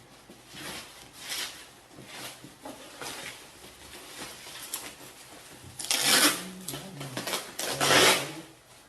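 Packaging being handled and opened by hand: a run of short rustling and scraping strokes, the loudest two about six and eight seconds in.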